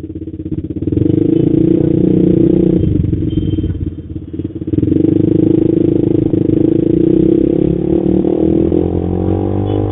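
Honda CBR150R's single-cylinder four-stroke engine running through an aftermarket Creed exhaust, heard from the rider's seat. It picks up about a second in, eases off briefly around four seconds, then pulls again, its pitch rising near the end.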